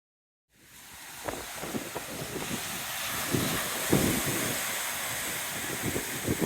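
Wind buffeting the microphone: a steady hiss that fades in, with irregular low thumps and rumbles under it, cut off sharply near the end.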